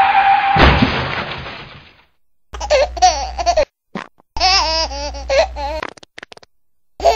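A crash about half a second in, dying away over the next second and a half, followed by a baby's giggling laughter in two bursts.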